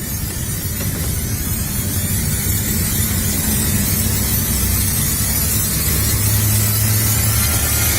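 Loud, steady hiss with a low hum underneath, slowly growing louder.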